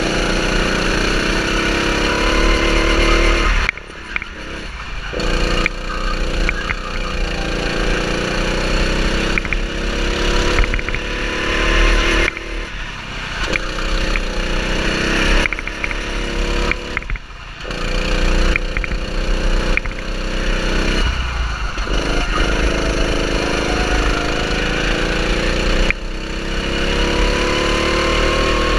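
Go-kart engine driven hard on track, its pitch climbing as it accelerates out of corners and dropping off sharply each time the throttle is lifted, about four times.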